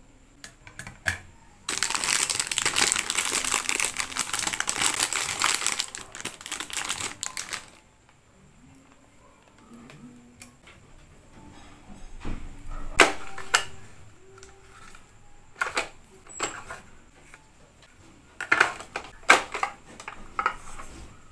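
Plastic packaging crinkling loudly for about six seconds. After that come scattered light clicks and taps as small cosmetic tins and items in plastic drawers are handled.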